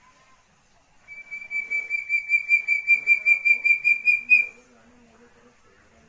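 Young Javan hill-partridge (puyuh gonggong) calling: a rapid series of whistled notes, about five a second, growing louder and slightly higher for some three seconds and ending on a stronger note.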